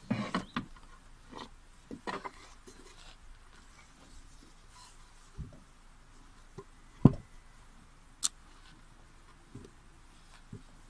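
Hands rummaging and handling gear in the back of a minivan, including a wooden cutting board: scattered knocks and rustles, one loud thump about seven seconds in and a sharp click just after.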